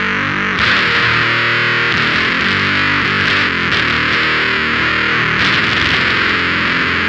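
Electric guitar played through the Screws octave fuzz pedal, a single op-amp fuzz with an Octavia-style octave-up output, heavily fuzzed. Chords are struck a few times and left to ring and sustain between strikes. The tone toggle is in its lower position, the maximum-bass, full-frequency setting.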